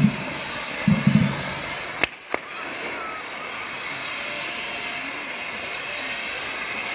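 Fountain fireworks on a hand-carried fire-bull frame hissing steadily as they spray sparks. There are a few low thuds in the first second and a half, and two sharp pops about two seconds in.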